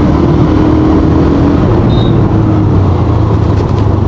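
Hero Xtreme 125R's 125 cc single-cylinder, air-cooled four-stroke engine heard from the saddle while the bike slows under hard braking. Its note sinks and settles lower a little past halfway, under heavy wind rush on the microphone.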